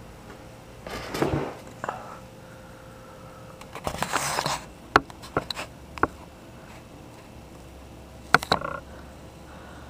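Handling noise: rustling and scraping with sharp clicks and knocks, a burst about a second in, a longer rustle about four seconds in, then a few single clicks.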